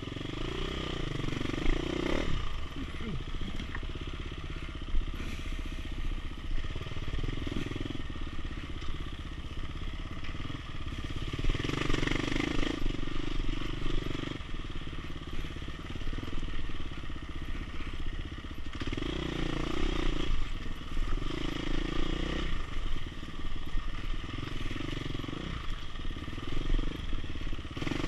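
Dirt bike engine running while being ridden along a rough trail, the engine note swelling and easing off in stretches of a few seconds as the throttle is worked, with clatter from the bike over the uneven ground.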